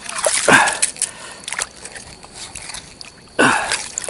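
Shallow seawater sloshing and splashing around a wading man's legs and tools, with scattered light clicks and knocks. Twice, about half a second in and near the end, he lets out a short vocal sound of effort that falls steeply in pitch.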